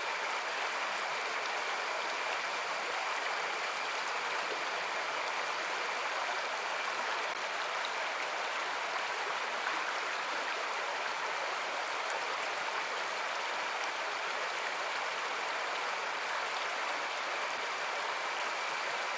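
Forest stream flowing in a steady, even rush, with a thin steady high tone above it.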